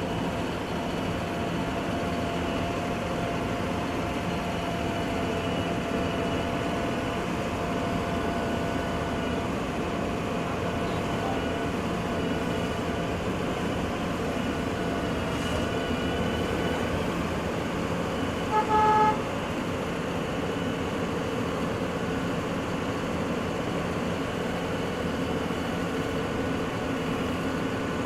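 Construction vehicle engine running steadily, with one short horn toot about two-thirds of the way through.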